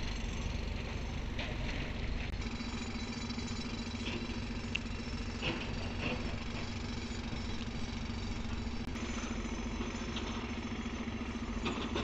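Engine of a JCB earthmover running steadily while it breaks rock for the road, with a few short sharp knocks.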